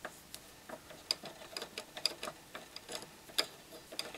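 Faint, irregular metal clicks, a few a second, from a screwdriver working the small centre screw out of a paraffin heater's toothed wick-adjuster gear wheel.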